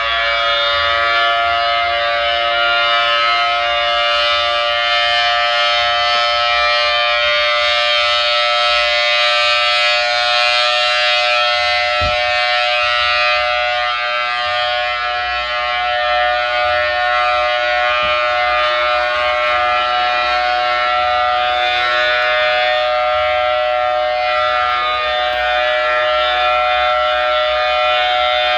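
Federal Signal Thunderbolt 1003 air raid siren, as reproduced by a siren app, sounding its alert signal: a steady two-note tone held at a nearly constant pitch, rising slightly over the first few seconds.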